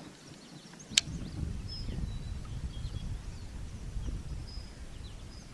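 A single sharp click about a second in, then a low rumble of outdoor noise, with a few faint bird chirps.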